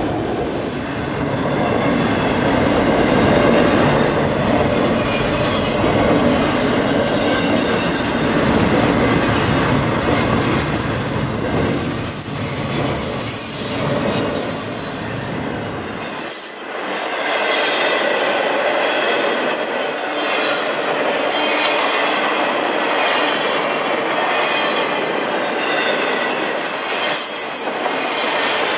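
Railroad cars rolling past with steel wheels squealing on the rails in thin high tones over a steady rumble. The low rumble drops away suddenly about halfway through.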